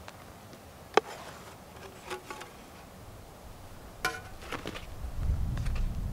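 A wooden spoon clicks and knocks against the hard-anodised aluminium pans of a Trangia Storm Cooker as grilled sausages are moved from the frying pan onto the perforated lid: a sharp knock about a second in, lighter taps after it, and a few knocks with a short metallic ring about four seconds in. Near the end there is a low buzz lasting about a second.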